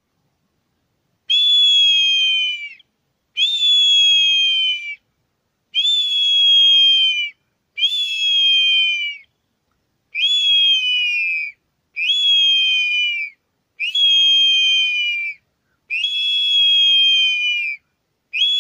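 Handmade ceramic eagle whistle made of two small whistles joined into one, each sounding a different note; blown together, the clashing notes give a high cry very like an eagle's or hawk's. Nine separate blasts of about a second and a half, each starting sharply and sliding slightly down in pitch.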